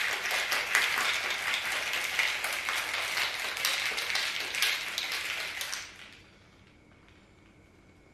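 Ice cubes rattling inside a plastic cocktail shaker shaken hard, a dense fast clatter that stops about six seconds in.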